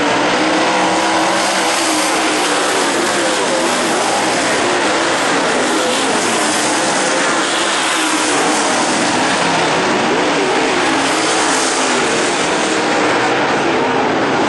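Several dirt late model race cars' V8 engines running hard around a dirt oval. The sound is a loud, steady roar whose pitch rises and falls as the cars lift and accelerate through the turns and pass by.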